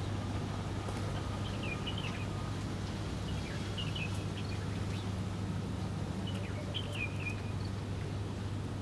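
Small birds chirping in short, scattered phrases, several times, over a steady low hum.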